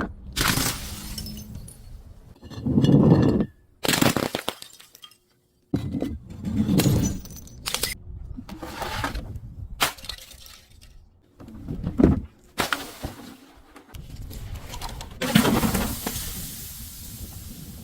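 Glass bottles breaking and being crushed: a series of crunching, shattering bursts a second or few apart, each tailing off into tinkling and grinding.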